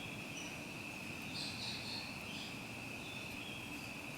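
Crickets trilling steadily at one high pitch over a low background hiss, with a few faint higher chirps.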